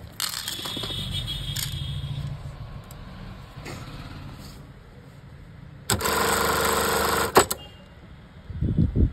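Industrial lockstitch sewing machine running. A quieter steady whir in the first two seconds is followed by a loud burst of stitching lasting about a second and a half, which ends in a sharp click. There are a few low knocks near the end.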